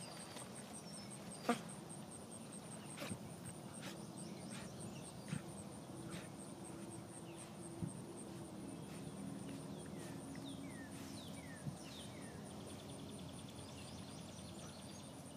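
Insects trilling in a high, fast, even pulse, with a bird giving a quick series of short falling chirps near the end and a few sharp clicks, the loudest about a second and a half in.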